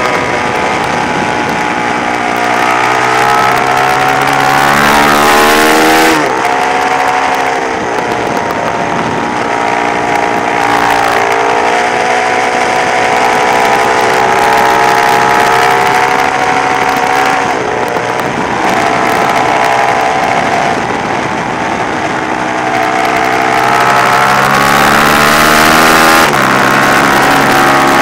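Sport motorcycle engine under hard acceleration on a racetrack. Its pitch climbs and then drops abruptly about four times as the rider changes gear, over steady wind noise on the microphone.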